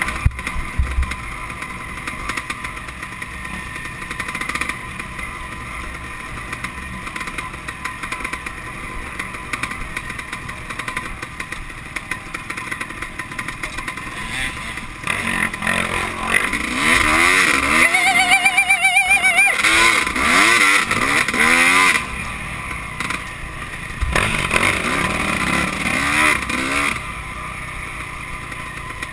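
Dirt bike engine heard from the rider's own machine, running steadily and then revving hard up and down on the throttle from about halfway through, with repeated rising and falling pitch as it works over rough trail.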